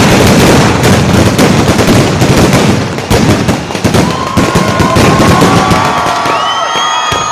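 Fireworks going off: a dense roar of blasts gives way to a rapid, machine-gun-like string of firecracker cracks. About halfway through, several shrill whistling tones join in, bending up and down over the crackling.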